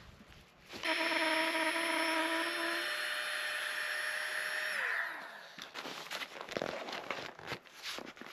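A small electric motor runs steadily for about four seconds, then is switched off and winds down with a falling pitch. A few light clicks and knocks of handling follow.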